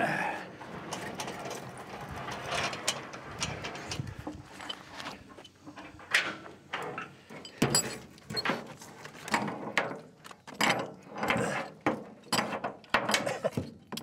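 Steel winch cable and its hook being handled and hooked back up: irregular metal clinks, rattles and scrapes, coming thicker in the second half.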